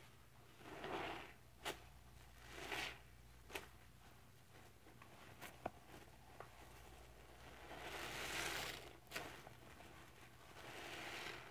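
Rubber-gloved hands squeezing a stack of soapy sponges in a bucket of sudsy cleanser: four wet squelching swells, the longest about eight seconds in, with short sharp clicks between them.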